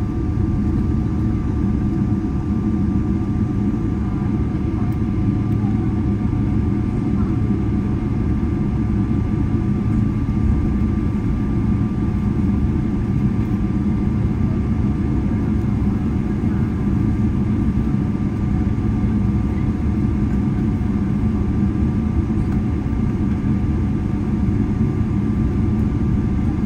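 Airliner cabin noise while taxiing: the jet engines at idle give a steady low rumble, with two faint steady whine tones above it.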